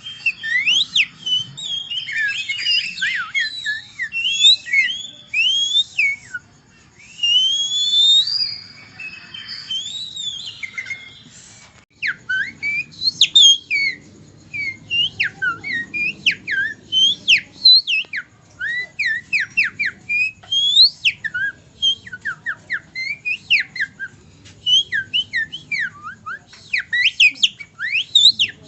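A man whistling by mouth in imitation of songbird song: a busy, high-pitched run of chirps and sliding whistles, changing about twelve seconds in to a rapid string of short rising and falling notes.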